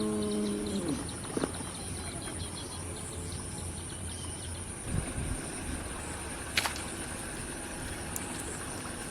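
Outdoor rural ambience: a steady high-pitched drone with rapid chirping of birds or insects over the first few seconds. A held low tone ends about a second in, and a few sharp clicks come later.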